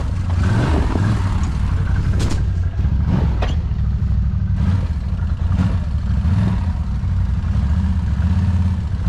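ATV (quad bike) engine running under load off-road, its low note rising and falling with the throttle, with a couple of brief clattering knocks.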